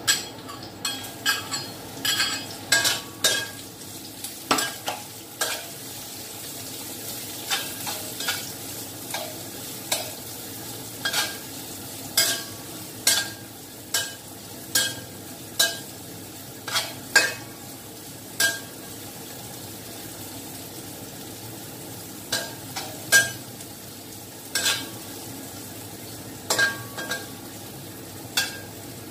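Spatula clanking and scraping against a metal wok in irregular strokes, over a steady sizzle of food frying in oil.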